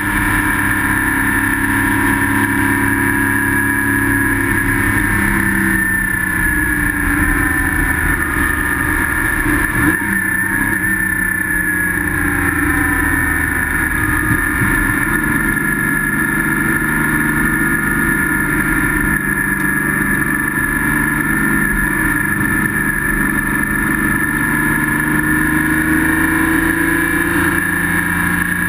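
Porsche Spec Boxster race car's flat-six engine heard from inside the cockpit, running hard on a wet track, its pitch rising and falling with speed and gear changes. There is a single knock about ten seconds in.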